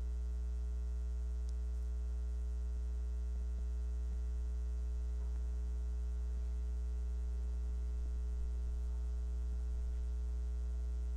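Steady electrical mains hum with its stack of overtones, even and unchanging throughout, with a faint, distant voice wavering under it in the middle.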